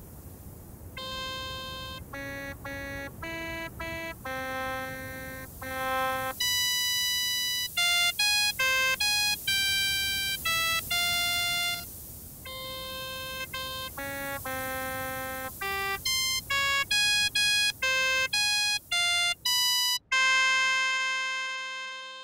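Dexed FM synthesizer notes played by breath through an Arduino air-pressure-sensor wind controller: a string of short random notes from a scale, each swelling and dropping with breath pressure. Harder blowing throws some notes up an octave, and a last held note fades out near the end.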